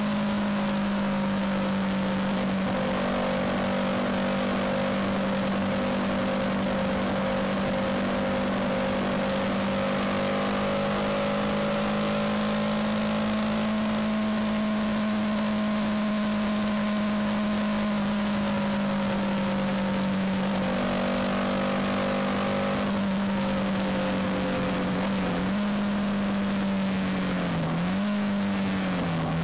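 Yamaha MT-125's 125 cc single-cylinder four-stroke engine running at a steady cruise, with wind rush over the bike-mounted microphone. In the last few seconds the engine note dips and picks up again three times as the rider changes down and slows.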